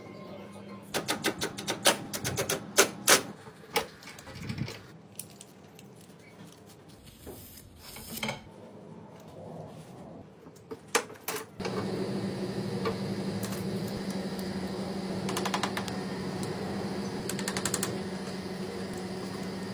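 A run of sharp clicks and knocks of hard parts being handled. About twelve seconds in, an air-conditioning unit switches on with a steady electric hum.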